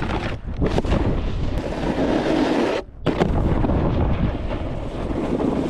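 Wind buffeting the microphone and a snowboard's edges scraping over snow while riding at speed; the noise drops out briefly about three seconds in, then comes back.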